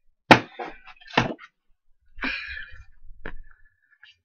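Handling of photos and cards: a sharp click about a quarter second in, a thump about a second in, a short rustle around two seconds and another click just after three seconds.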